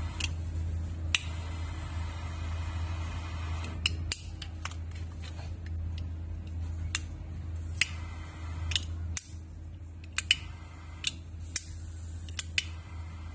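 Over a dozen irregular sharp metallic clicks and clacks from metal novelty gas lighters being handled: rocker-arm lids flicking and the metal cases knocking on the counter.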